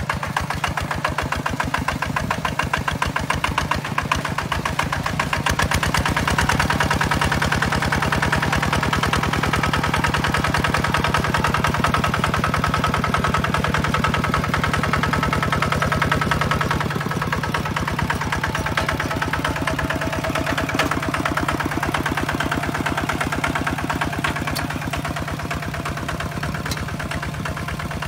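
The single-cylinder diesel engine of a Kubota two-wheel walking tractor runs steadily under load as it pulls a plough through a wet paddy field, with a fast, even firing beat. It grows a little louder for a stretch in the middle.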